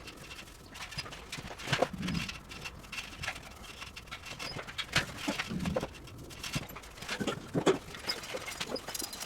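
Irregular knocks and clatters from hands-on demolition work, several with a dull thud beneath them, the sharpest a little under two seconds in, at five seconds and near the end.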